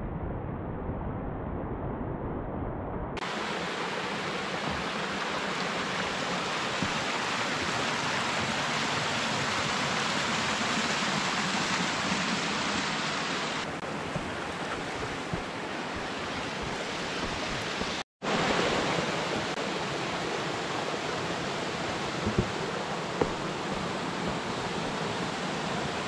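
Steady rushing of a small forest creek tumbling over rocks. The sound cuts out for a moment about two-thirds of the way through.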